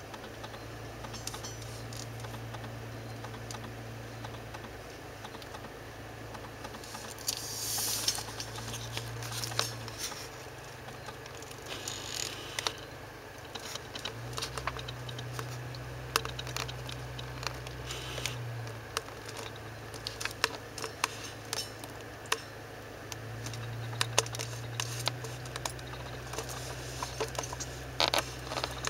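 Car engine running at low speed, heard inside the cabin: a low hum that swells and drops every few seconds as the car creeps along behind the skunk. Scattered sharp clicks and a few brief rustles sound on top.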